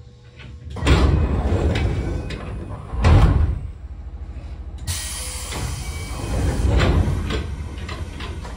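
Pneumatic sliding passenger doors of a 205-series electric train working during a station stop. A loud burst comes about a second in and another near three seconds, then a long hiss of air from about five seconds, over a steady low rumble.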